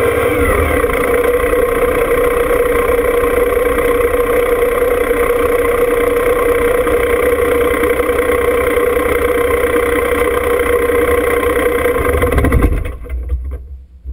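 John Deere 2305 compact tractor's three-cylinder diesel engine running steadily, then shut off about a second and a half before the end.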